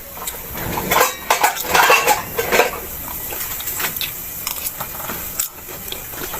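Eating sounds: utensils clicking and clinking against a dish, busiest between about one and three seconds in.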